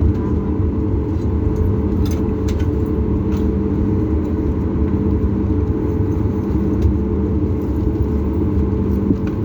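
Steady low hum and rumble inside the cabin of a Boeing 737 MAX 8-200 standing after landing, with a few faint clicks a couple of seconds in.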